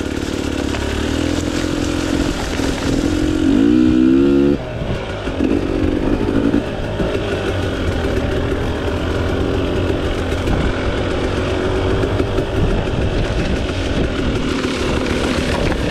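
Single-cylinder two-stroke engine of a KTM 300 XC-W dirt bike, running unevenly at varying revs. The revs climb for about a second, beginning around three and a half seconds in, then drop off sharply, and the engine keeps running after that.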